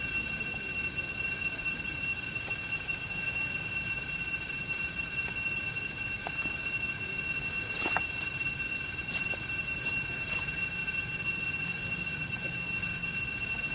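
Steady, high-pitched drone of cicadas in a forest chorus, several whining tones held without a break. A handful of brief squeaks that sweep downward come about eight to ten and a half seconds in.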